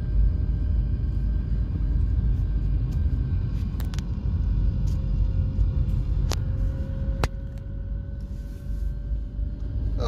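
A car driving, heard from inside the cabin: a steady low engine and road rumble with a faint engine whine that drifts slowly in pitch. A few sharp clicks come through in the middle seconds.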